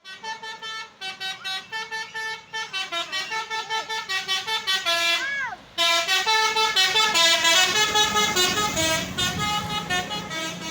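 Indonesian 'telolet' bus horn, a Basuri multi-tone air horn, playing a quick tune of short stepped notes. It breaks off briefly a little past halfway, then comes back louder.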